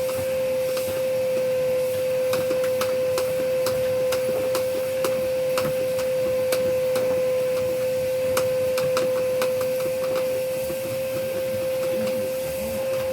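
Vacuum cleaner running steadily with an even motor whine, with scattered light clicks throughout.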